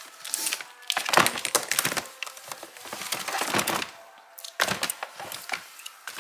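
Shoes being rummaged through in a plastic storage tub: sneakers and sandals rustling and knocking against each other and the tub in several short bouts of clatter.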